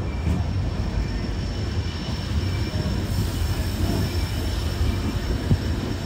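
Train running along the line: a steady low rumble, with a faint thin high whine coming in about halfway through.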